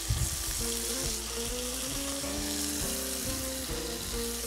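Kidneys sizzling steadily as they sauté in hot oil in a frying pan, with a brief knock right at the start.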